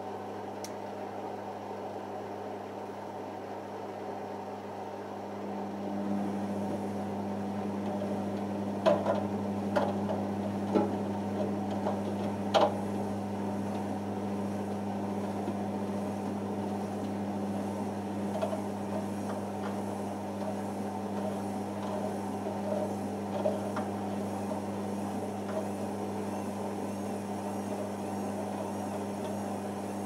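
Beko WM6103 front-loading washing machine in its interim spin stage after the wash: a steady mechanical hum that grows louder and fuller about six seconds in. A few sharp knocks come from the drum between about nine and thirteen seconds in, with fainter ones later.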